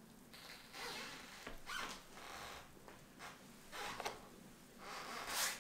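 Soft rustling and rubbing from hands and clothing moving close to the microphone, in several short swishes.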